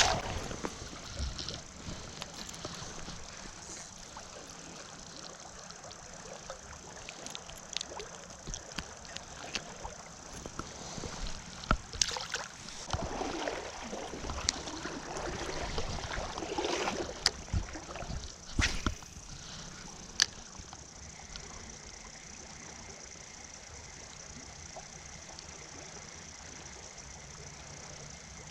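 River current flowing steadily, with a few sharp clicks and louder stretches of sloshing water around the middle.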